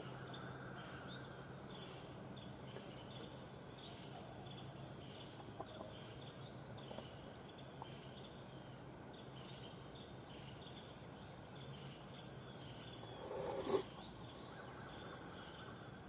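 Quiet field-edge ambience with birds chirping now and then in short, high, falling notes over a faint steady hum. Near the end there is one brief louder swish close by.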